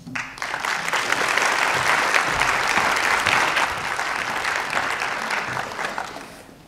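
Audience applauding, a dense steady clapping that swells quickly and dies away near the end.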